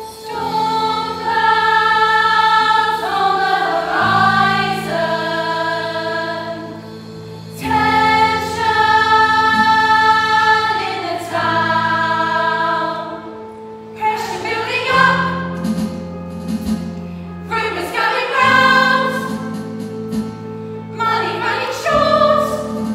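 A stage chorus of female voices singing together in long held phrases over sustained chords from the accompaniment, pausing briefly between phrases.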